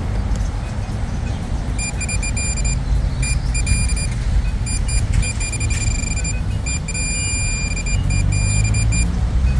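Metal detector beeping on a buried target: a high electronic tone that cuts in and out in short pulses from about two seconds in, over a steady low rumble.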